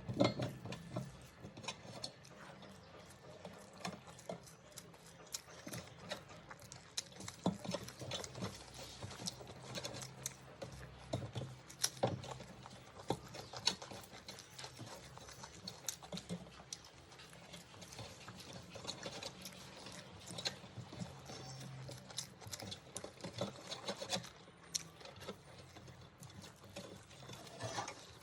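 Eating sounds: many irregular clicks and crunchy crackles of food being chewed or handled, with no talking.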